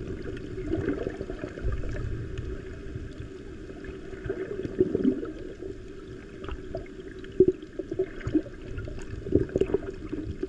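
Muffled underwater water noise from a GoPro Hero 9 held below the surface: a steady low rumble and gurgle, with a few short knocks and pops in the second half.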